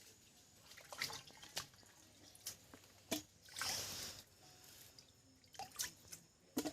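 Water dripping and trickling in scattered drops, with a short splash a little past the middle.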